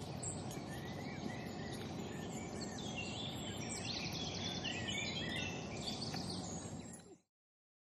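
Small birds singing and chirping, with a quick trill about four seconds in, over a steady low outdoor rumble; the sound fades out abruptly just after seven seconds.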